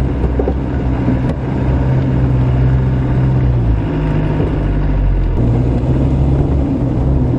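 Land Rover engine running under way, heard from inside the cabin as a steady low drone. Its note steps up in pitch about four seconds in and drops back just after five seconds.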